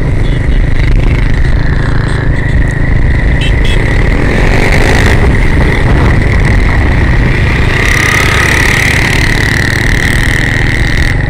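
Engine noise and heavy wind rumble on the microphone from riding along a road, with a steady high whine that is strongest in the second half.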